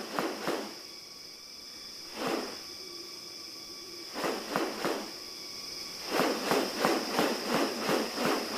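Forest insects droning steadily at a high pitch, with short repeated sweeping sounds over them. The sweeping sounds come singly at first, then quicken to about three a second for the last few seconds.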